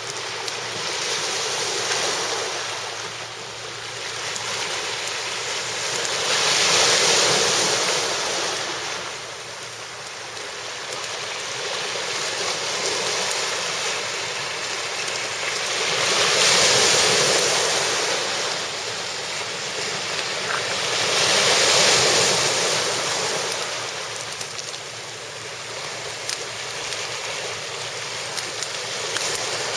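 Waves washing onto the shore, the surf noise swelling and falling away every several seconds, with a few light clicks near the end.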